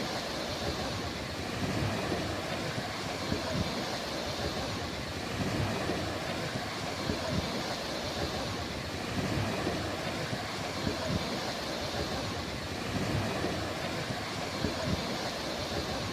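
Sea waves washing onto a beach: a steady surf hiss with a low surge every couple of seconds.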